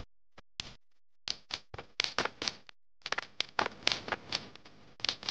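Sound-design clicks for a news intro: a run of short, sharp ticks, a couple spaced out at first, then coming at about three to four a second.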